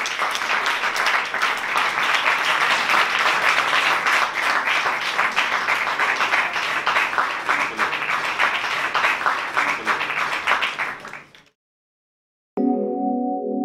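An audience clapping, dense and steady applause that fades out about eleven seconds in. After a second of silence, music of held steady tones begins near the end.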